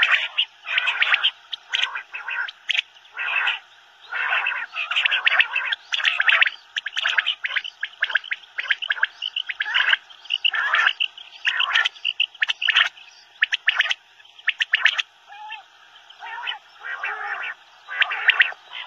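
Common quail (Coturnix coturnix) calling: a fast, irregular series of short call bursts, several a second with brief gaps between them.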